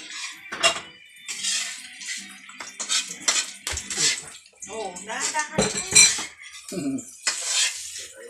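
A metal spatula clanking and scraping in a frying pan as food is stirred, amid repeated sharp clinks of dishes and utensils.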